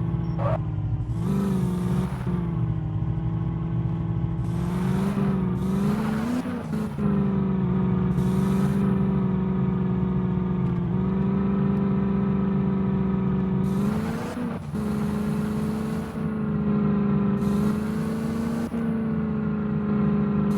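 A motor vehicle's engine running at a fairly steady speed, its pitch drifting slightly up and down.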